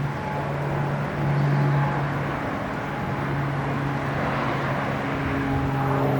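Steady low mechanical hum over a haze of outdoor background noise, holding even throughout.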